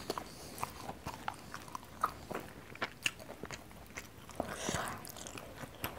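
Close-miked chewing of a mouthful of rice and spicy lung (paru mercon): many small wet mouth clicks and smacks, with one soft breathy hiss near the end.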